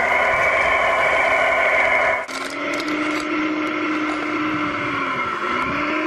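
Braeker L25 RC hydraulic wheel loader running: a steady mechanical whine from its drive and hydraulics, changing to a slightly higher pitch about two seconds in, with scattered clicks of stones. The pitch dips briefly near the end as the bucket pushes into rock.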